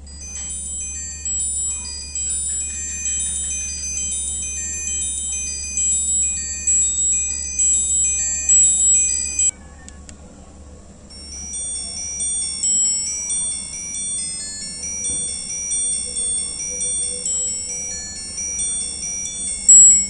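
Ringtones playing through the tiny speaker of a Nokia super mini phone, previewed one after another from its ringtone list: a high-pitched, chiming melody of quick notes cuts off suddenly about halfway through, and a second or so later a different chiming ringtone melody starts.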